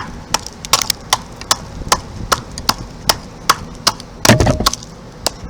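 A hand tool chopping at a block of ice, striking with sharp, even knocks about two or three times a second. About four seconds in there is a louder, longer crunch as the ice gives or is scraped.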